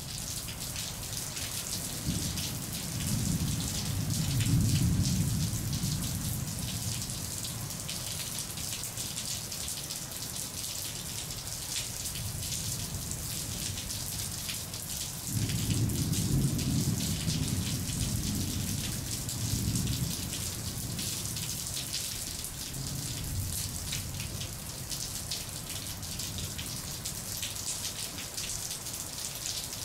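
Steady patter of falling rain, with low rumbles that swell and fade a few times: near the start, in the middle, and once more shortly after.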